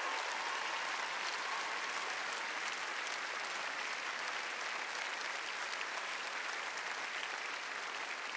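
Large studio audience applauding steadily after a dance performance.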